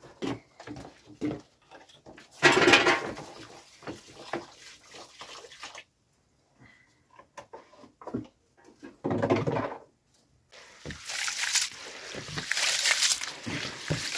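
Scattered knocks and a short loud burst of noise, then from about three seconds before the end, water swishing and splashing as rice is washed by hand in a plastic bowl.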